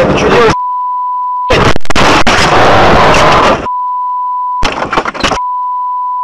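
A steady, single-pitched censor beep comes and goes several times, cutting in over the dashcam sound. Between the beeps come loud, noisy stretches of in-car sound with sharp knocks, the longest about two seconds, as the car tumbles in a crash.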